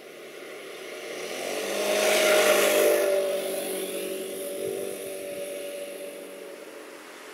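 Motor scooter approaching and passing close by, loudest about two to three seconds in, its engine note dropping slightly in pitch as it moves away and fades.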